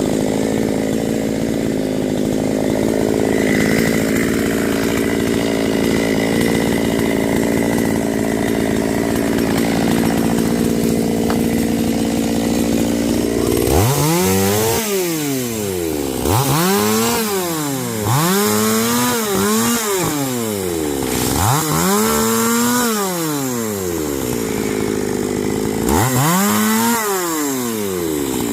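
Chainsaw engine running at a steady pitch, then revved up and let fall back about six times in the second half.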